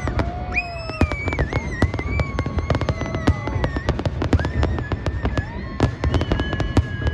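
Fireworks bursting in a dense, rapid string of sharp bangs and crackles over a low rumble, with held tones that bend slightly in pitch sounding over them.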